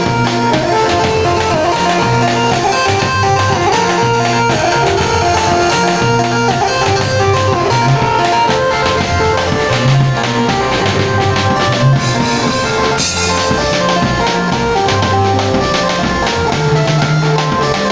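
Small live band playing an upbeat instrumental through a PA: electronic keyboard and electric bass guitar over a steady drum beat.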